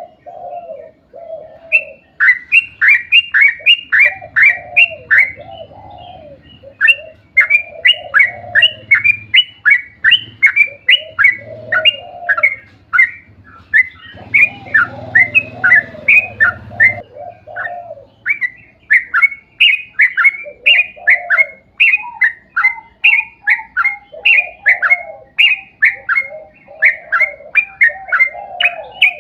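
Yellow-vented bulbul (trucuk) singing in long, rapid runs of short falling chirps, about four a second, with brief breaks, over lower warbling notes.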